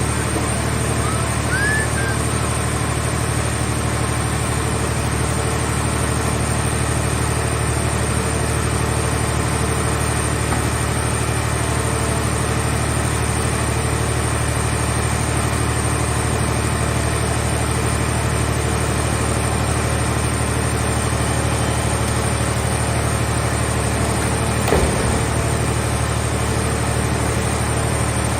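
Scrap car-shell baler's power unit running with a steady hum. There is a single knock about 25 seconds in.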